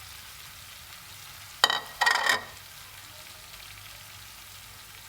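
Spiced potato samosa stuffing sizzling softly in a pan, with a spoon or spatula scraping through it twice in quick succession about one and a half seconds in as it is stirred.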